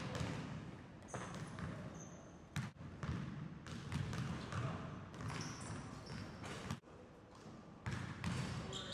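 Basketball dribbled on a hardwood gym floor, bouncing repeatedly, with a few short high squeaks.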